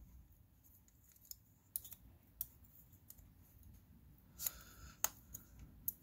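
Small pliers gripping and prying at a padlock's brass cover plate: a few faint, scattered metal clicks, with a short scrape about four and a half seconds in.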